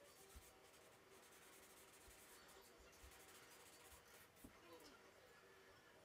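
Faint scratching and rubbing of charcoal being worked over sketchbook paper in short strokes, with a few soft knocks. It stops about four and a half seconds in.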